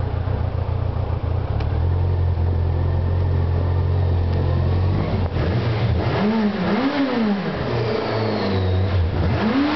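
Yamaha GTS-1000's inline-four engine running steadily as the motorcycle rides along. From about halfway the engine sound turns hollow and swooping as it echoes off the walls of narrow rock tunnels.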